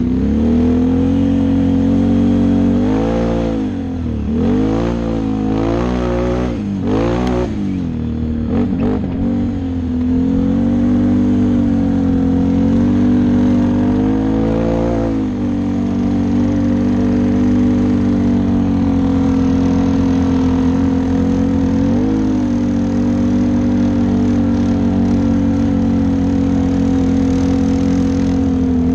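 Can-Am XMR 650 ATV's V-twin engine heard from the rider's seat, revving up and down through the first several seconds, then running at a steady speed with a couple of short throttle blips later on.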